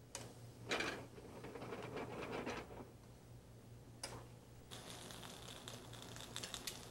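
Cream sauce bubbling in a sauté pan while a spoon stirs and scrapes against the pan; from about five seconds in a soft crackle of tiny pops goes on steadily. A low steady hum runs underneath.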